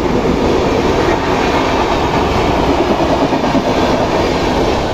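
An express passenger train running through a station at speed: a loud, steady rush and rumble of coach wheels on the rails.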